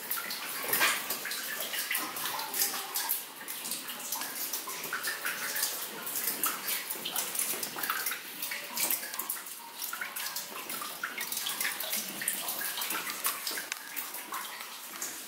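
Water dripping and trickling in a wet mine tunnel: many small, irregular drips and splashes over a steady wash of running water.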